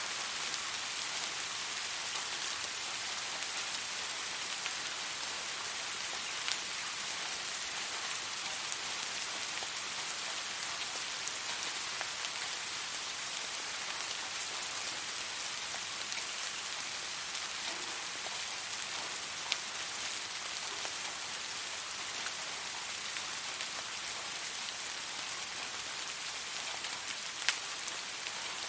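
Steady rainfall pattering on a surface, an even hiss with occasional sharper drips striking close by.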